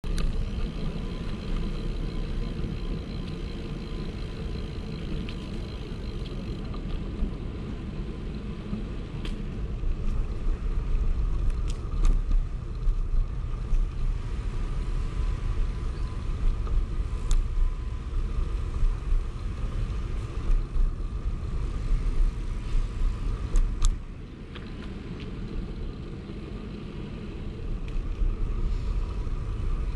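Wind rumbling and buffeting on the microphone of a camera riding on a moving bicycle, rising and falling in gusts, with a few sharp clicks; it eases off for a few seconds near the end.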